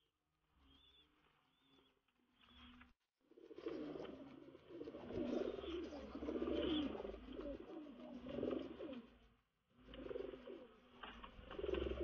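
Domestic pigeons cooing: faint at first, then repeated wavering low coos from about three seconds in, with a short break before they resume near the end.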